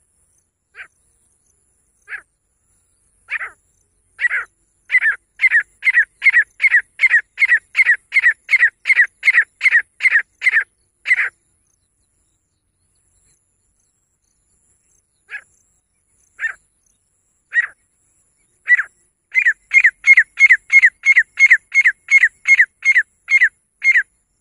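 Female grey francolin (teetar) calling: a few spaced, piercing notes that quicken into a fast, even run of loud calls at about three a second. After a pause of a few seconds the same build-up comes again.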